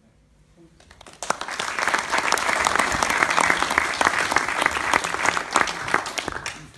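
Audience applauding. The clapping starts about a second in, goes on steadily, and stops abruptly near the end.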